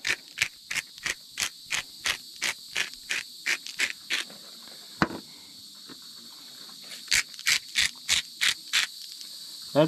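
Salt and pepper shaken from a shaker over raw pork tenderloins: quick even shakes about three a second for roughly four seconds, a pause, then a shorter run of shakes near the end. A steady high chirring of insects runs underneath.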